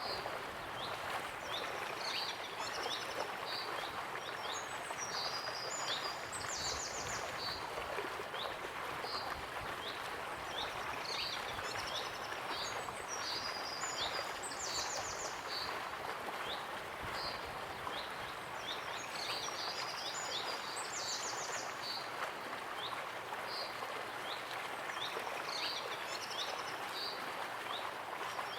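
Steady rush of a waterfall with birds singing over it: short chirps and rapid trills repeating throughout.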